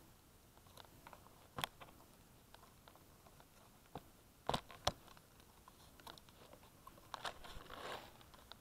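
Handling noise right at the microphone: scattered sharp clicks and taps of a hand on the camera and something plastic, with two louder knocks around the middle and a brief crinkly rustle near the end.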